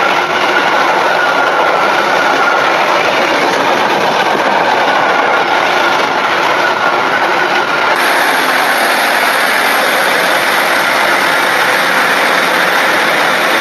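Freight train of bogie coal hopper wagons passing at speed, a steady loud noise of wheels on rail. About eight seconds in the sound changes abruptly to a passenger train moving alongside the platform.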